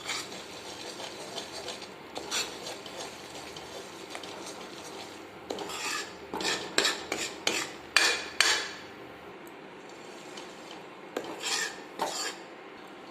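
A spoon stirring and scraping gram flour (besan) roasting in hot ghee in a pan, in bursts of quick scraping strokes about halfway through and again near the end.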